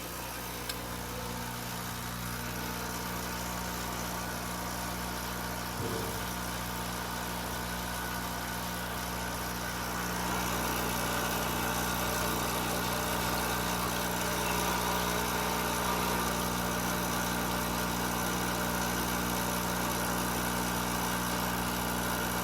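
Old La Spaziale espresso machine's pump running steadily as a shot is pulled, a continuous low hum that gets a little louder about ten seconds in. The pump draws from a container of water with no mains pressure behind it, so the shot runs a little slow.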